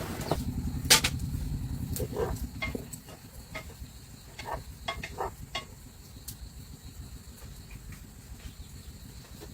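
Scattered light knocks and clicks at uneven intervals over a low rumble that dies away about three seconds in.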